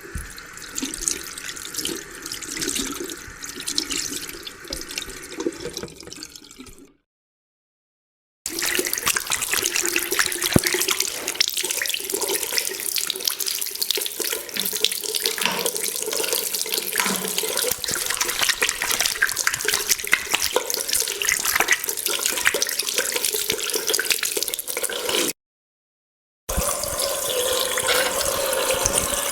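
Three separate clips of running water, one after another with short silent gaps: a few seconds that fade out, a long steady stretch of splashing, pouring water, then a few more seconds of running water.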